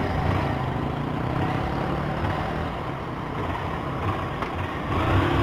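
A Honda CG Start 160's single-cylinder engine running at low speed, with tyre hiss from the wet road and wind noise. The engine grows louder near the end.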